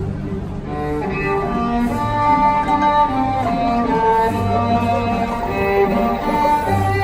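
Bowed string ensemble playing a melody: violins carry the tune over sustained cello and bass notes.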